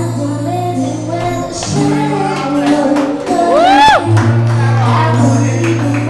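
Live acoustic pop duet: voices singing into microphones over strummed acoustic guitar, with hand claps keeping the beat. A sung note slides up and falls away a little before the four-second mark.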